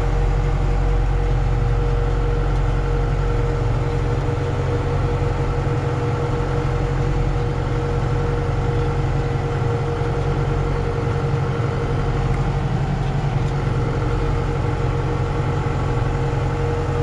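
John Deere tractor engine running steadily, heard from inside the cab, with a steady hum-like whine held at one pitch.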